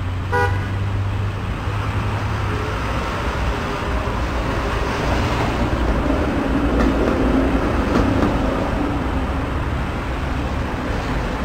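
Car engines and road noise running steadily, with a brief horn toot about half a second in.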